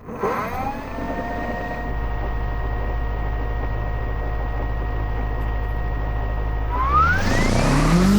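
Electric motors of a YU XIANG F11-S AH-64 Apache RC helicopter whining steadily over a low hum, then rising in pitch about seven seconds in as they spool up.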